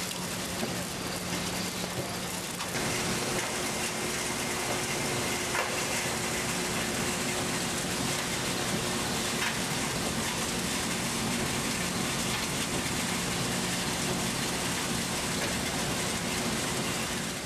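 Crushed glass cullet rattling through a glass cleaning machine, a dense hiss like rain. About three seconds in it gives way to a louder, even machine noise with a steady hum, where the separated paper and label waste is discharged.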